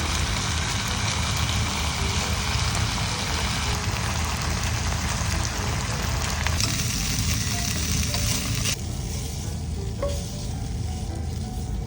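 Slices of pork tongue sizzling in a frying pan, a dense steady hiss of frying fat that turns quieter about nine seconds in.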